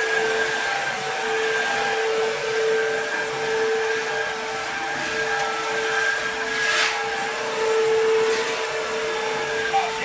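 ILIFE W90 cordless wet-dry upright vacuum running in dry mode over a pile carpet, its motor and roller brush giving a steady whine over a rushing hiss, with a brief swish about seven seconds in.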